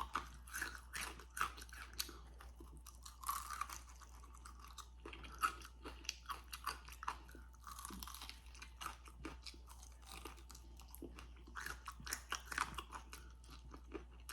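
Crispy fried chicken wings being chewed close to the microphone: many short, irregular crunches.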